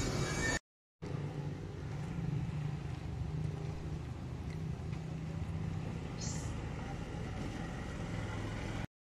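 A steady low hum like a running motor, with one short high chirp about six seconds in. The sound drops out briefly just under a second in.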